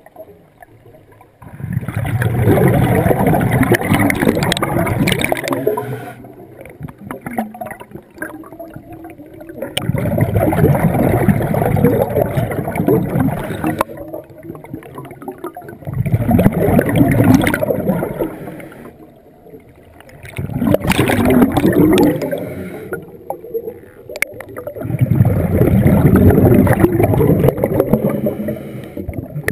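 Scuba diver's exhaled bubbles rushing out of the regulator underwater. The bubbling comes as five long bursts of breath a few seconds apart, with quieter gaps between them.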